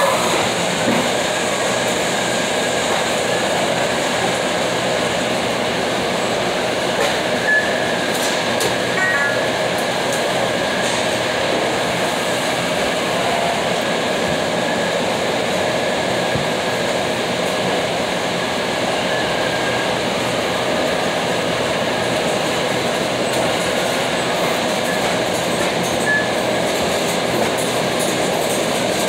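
Loud, steady mechanical rumble and clatter, with a few faint squeaks about a third of the way in.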